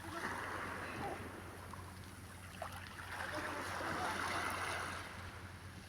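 Small sea waves washing over a stony shore, the wash swelling around the middle and easing off near the end.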